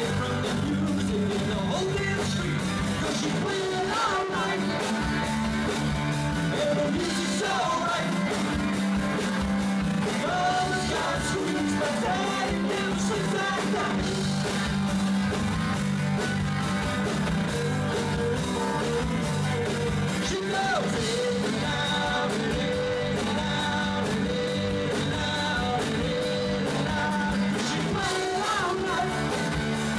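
A live rock band playing a song, with a sung lead vocal over electric guitar, steady throughout.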